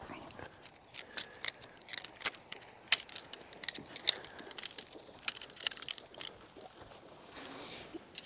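Camping gear being handled while a tent is taken down and packed: an irregular run of sharp clicks and clacks for several seconds, then a softer rustle near the end.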